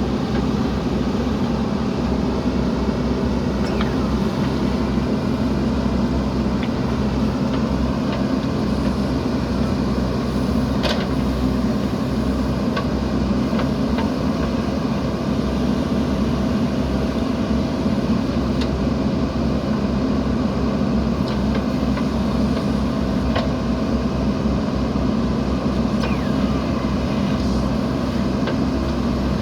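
JCB 3DX Eco backhoe loader's diesel engine running steadily under working load while it digs, with a few faint clicks now and then.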